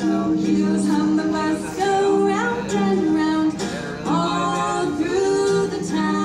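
Two women singing live into microphones, accompanied by a strummed acoustic guitar, with held sung notes changing pitch.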